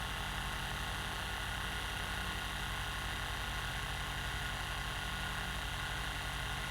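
Percussion massage gun running steadily, a constant motor hum with a fine, rapid pulsing.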